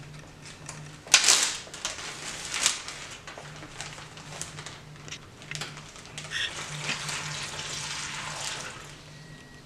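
Plastic zip-top bag rustling and crinkling as it is opened and handled, then dyed water poured from a glass measuring cup into the bag, splashing for about two seconds near the end.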